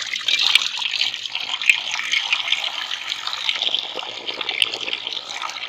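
Water poured in a steady stream into a kadai (Indian wok) that is already hot on the fire, a continuous splashing hiss that tails off near the end.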